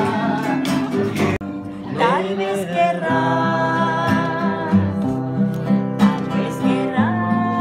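Acoustic guitar playing with voices singing along. The sound breaks off abruptly for a moment about a second and a half in, then the song carries on.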